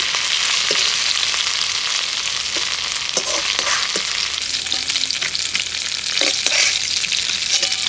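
Small shrimp sizzling in hot mustard oil in a kadai, a steady hiss, with a metal ladle scraping and knocking a few times as they are scooped out.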